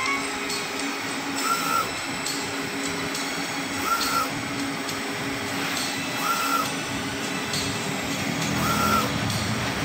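UV flatbed printer running a print pass: a steady machine hum and whir. A short high beep repeats about every two and a half seconds.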